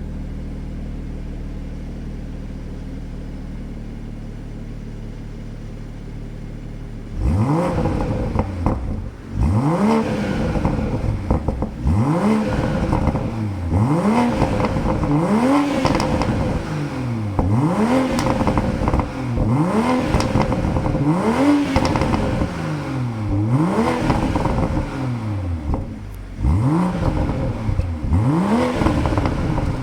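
BMW M340i's 3.0-litre turbocharged inline-six idling steadily, then, about seven seconds in, revved over and over, one rev every two seconds or so, in Sport Plus mode. The exhaust pops and crackles as each rev falls.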